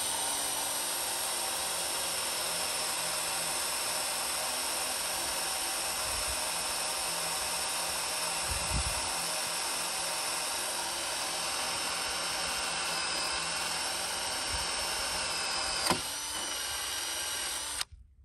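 Ryobi cordless drill boring a 5/8-inch hole through a wooden frame board with a Forstner bit, running steadily under load. There is a sharp click about sixteen seconds in, and the drill stops abruptly near the end.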